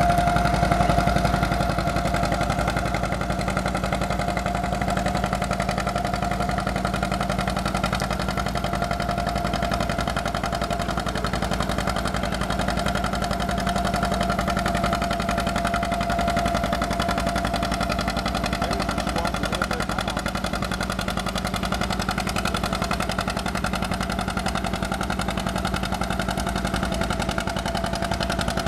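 John Deere two-cylinder tractor engine running steadily under load while it pulls a weight sled in a tractor pull.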